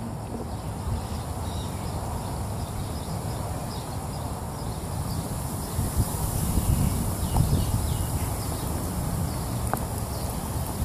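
Outdoor ambience: a low, steady rumble that swells and gusts from about six seconds in, with faint, brief bird chirps high above it.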